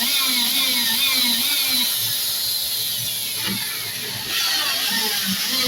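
A power drill running with a steady, cycling whir that repeats about three times a second, dipping in level about three and a half seconds in and then picking up again.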